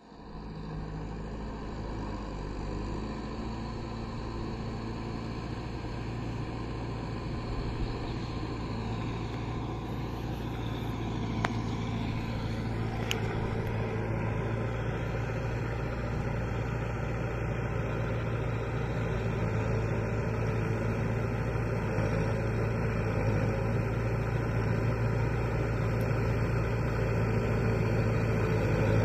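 Kubota MU5502 tractor's four-cylinder diesel engine running steadily as it works a rotavator through flooded paddy mud, growing gradually louder as the tractor approaches.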